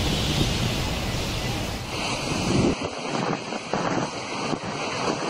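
Storm-force wind and driving rain buffeting the microphone in a dense, rumbling rush of noise. About two seconds in it changes to a thinner wind-and-rain hiss with much less rumble.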